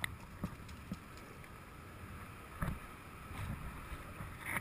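Quiet outdoor background: a steady low rumble with a few faint knocks.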